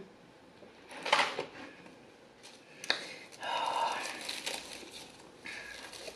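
A small takeout cup and its lid being handled and worked open, with a few sharp clicks and a stretch of crinkling a little past the middle.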